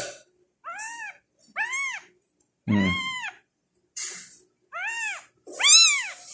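Very young tabby kittens mewing: about five short, high, rising-and-falling cries roughly a second apart, the loudest near the end.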